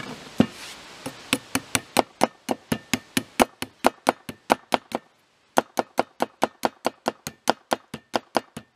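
Knife blade chopping quickly down the sides of a wooden handle stood on end on a wooden bench, a sharp knock of wood at each stroke, about five a second, with a short pause about halfway.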